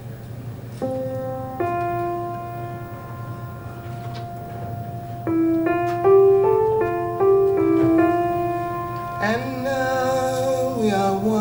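Recorded music played over hi-fi loudspeakers: held keyboard notes and chords that change more quickly in the middle, over a low steady drone, with a singing voice coming in about nine seconds in.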